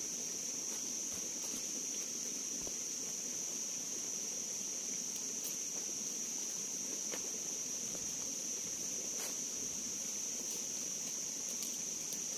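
Steady high-pitched insect chorus, an unbroken drone from many insects, with a few faint scattered clicks.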